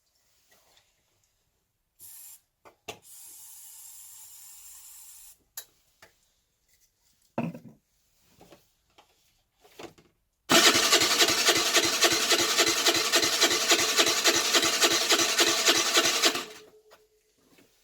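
Electric starter cranking the Baotian Tanco's 50cc four-stroke engine for about six seconds, a loud, even, rapid pulsing, without the engine catching, then winding down; the engine is flooded, with the carburettor fouled in the owner's view. Earlier comes a short hiss and a few light clicks.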